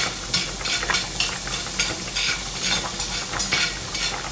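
Chopped garlic sizzling in melted butter in a stainless steel pan, with a plastic spatula stirring and scraping the pan in short strokes about twice a second.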